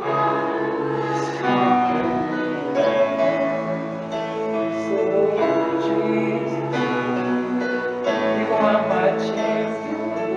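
Worship music with acoustic guitar and sustained chords, some singing possibly blended in, playing steadily.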